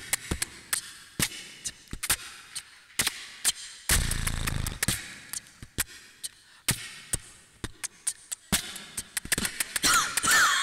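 Irregular sharp clicks and knocks, with a low rumbling thud about four seconds in and a brief high voice-like squeal near the end.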